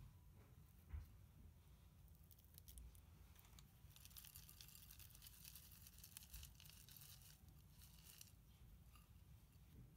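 Faint rustle and crackle of coarse potting mix poured from a plastic scoop into a terracotta pot of bulbs, thickest from about four to eight seconds in. A soft low thump about a second in.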